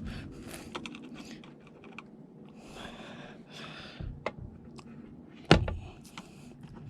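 Small plastic clicks and scraping as door trim pieces are pried loose, with one loud sharp snap about five and a half seconds in as a piece comes free.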